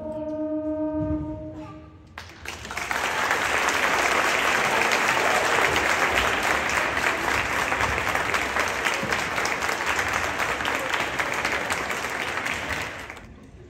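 A beginning school wind band's final held chord, which cuts off about two seconds in. Audience applause follows for about ten seconds and dies away near the end.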